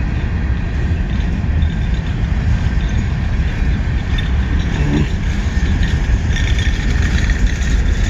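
Grain train's covered hopper cars rolling slowly past: a steady rumble of steel wheels on the rails.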